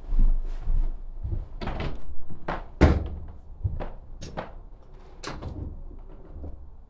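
A string of irregular knocks and clunks, the sharpest about three seconds in, like a door and things being handled.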